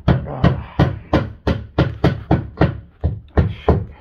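About a dozen sharp, loud knocks at a steady pace of about three a second, each with a short ring, stopping abruptly at the end.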